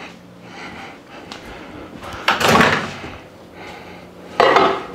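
A door opened and then shut in a kitchen: two clunks about two seconds apart, the second sharper, over a faint steady low hum.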